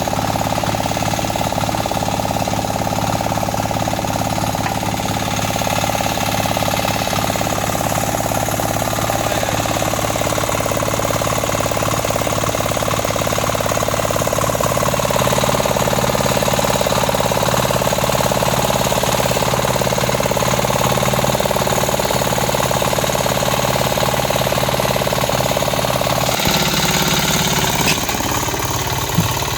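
Mini tractor engine running steadily under load while harrowing a muddy rice field; its note rises and gets a little louder about halfway through and changes again near the end.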